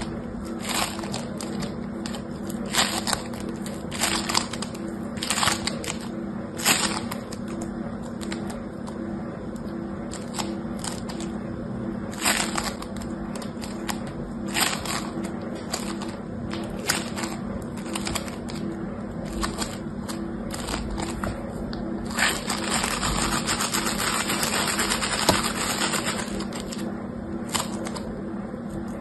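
Crunchy foam-bead slime (floam) crackling and popping as it is squeezed and kneaded in the hand: scattered crisp clicks, with a denser run of crackling about three-quarters of the way through.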